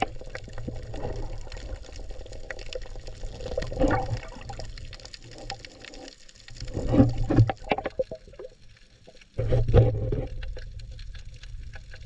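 Muffled underwater water noise from a freediver swimming with the camera: water rushing and bubbling past the housing, swelling in several surges.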